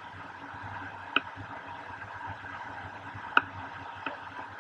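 Steady rush of air on the camera microphone during a tandem paraglider flight, with three short sharp clicks: about a second in, a louder one past the three-second mark, and a fainter one soon after.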